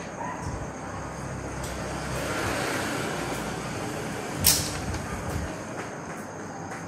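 Chalk writing on a blackboard: a run of scraping strokes and small taps, with one sharp tap about halfway through.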